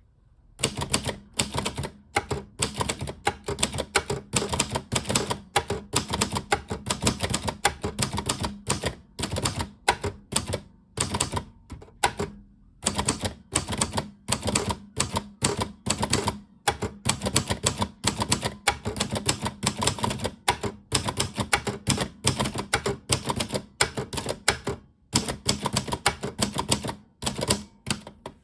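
Typing on a Royal 200 typewriter: fast runs of sharp key strikes, broken by short pauses of a fraction of a second to about half a second.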